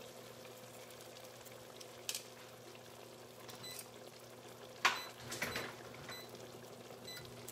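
Chicken breasts and Brussels sprouts simmering in chicken broth in a pan: a faint steady bubbling sizzle. A light knock comes about two seconds in and a louder knock with a short clatter near the five-second mark.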